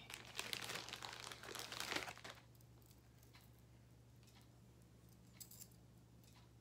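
Crinkling and rustling, like thin plastic packaging being handled, for about two seconds. After that there is only a low steady hum, with two faint clicks late on.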